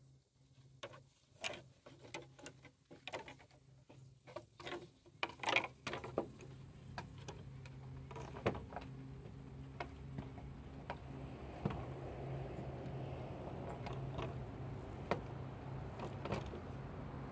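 Irregular clicks and knocks, thickest in the first half, over a steady low hum, with a rushing noise building through the second half.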